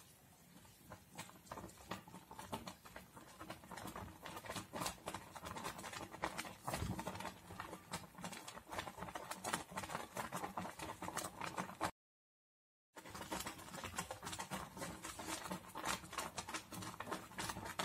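Thick milk custard with vermicelli bubbling in a saucepan at the boil: a dense run of small pops and plops that gets busier after the first couple of seconds. The sound drops out for about a second past the middle.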